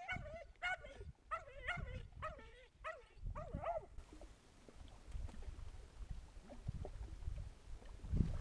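A dog whining: a quick run of short, high, wavering whines, several a second, that stops about four seconds in. Faint low wind rumble follows.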